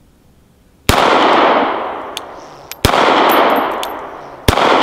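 Three shots from a suppressed VZ 61 Skorpion semi-automatic pistol in .380, spaced about two seconds apart, the first about a second in. Each sharp report is followed by a long echo that fades over a second or two.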